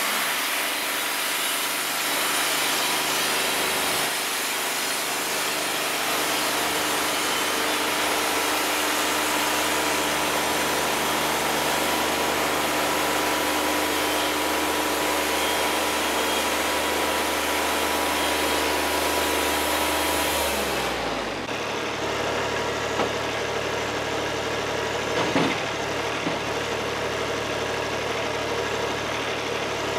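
Wood-Mizer LT50 Wide portable sawmill running hard at full speed, steady, then winding down sharply about 21 seconds in and settling to a lower idle. A short clank comes about 25 seconds in.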